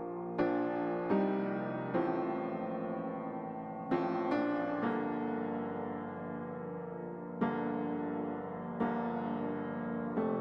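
Background music: slow piano chords, each struck and left to ring out.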